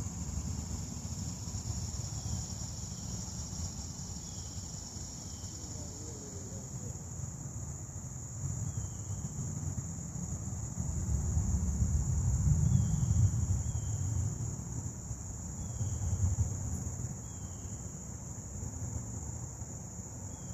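Steady high-pitched insect chorus with short chirps recurring every second or so, over a low rumble that swells about halfway through.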